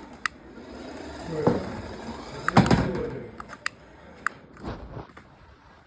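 Plastic toys and packaging being handled: scattered sharp clicks and knocks, with a louder thump about two and a half seconds in.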